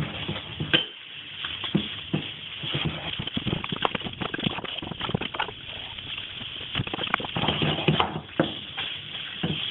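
Pieces of hot dog dropped by hand into a frying pan where chicken is frying in butter: a steady sizzle with irregular taps and clatter of food and utensil against the pan.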